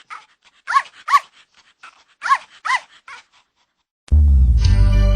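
Yorkshire terrier puppy barking in high, sharp yaps: two pairs of barks with a few faint yips between. Music starts suddenly near the end.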